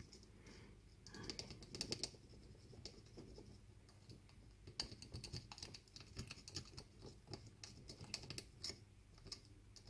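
Tip of a pair of metal tweezers scraping and picking at a printed circuit board: faint, irregular scratches and small ticks.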